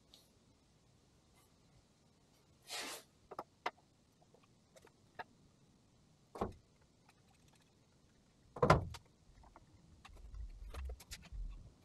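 Cast iron weight plates handled and set down on a metal cargo rack: a short scrape, a few light knocks, and one heavy metallic clunk, the loudest sound, about nine seconds in. Near the end, a run of clicks as a one-handed bar clamp is ratcheted tight over the plates.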